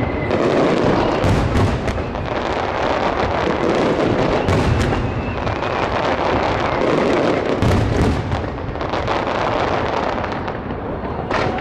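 Fireworks star mine, an electronically fired rapid barrage: shells launched and bursting in quick succession, a continuous volley of overlapping booms and crackling with several sharp reports standing out.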